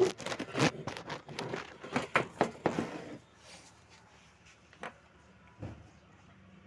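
A quick run of clicks and knocks as the voltage stabilizer and its wiring are handled. Then comes a single click and a dull thump, after which a faint, steady, low mains hum starts, the stabilizer's transformer being powered up.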